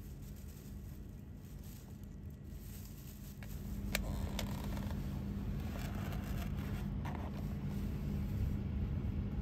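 Steady low hum and rumble inside an E6-series Akita Shinkansen carriage. A few sharp clicks come a few seconds in, then a stretch of rustling and scraping as the ekiben box is slid out of its paper sleeve and its plastic tray handled.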